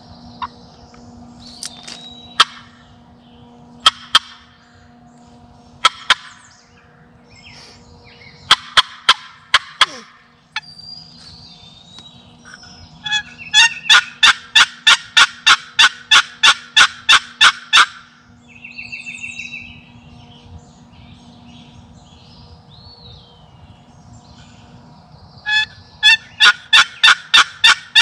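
Wooden turkey box call worked in short sharp hen-turkey notes: a few single strokes early on, then a fast, loud run of about twenty at four to five a second, and another run starting near the end.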